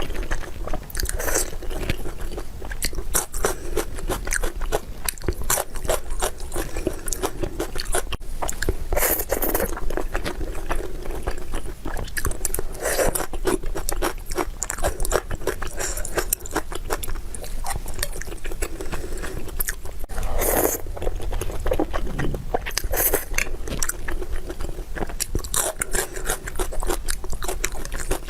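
Close-miked chewing and biting of food: a steady run of crunching, with a louder bite every few seconds.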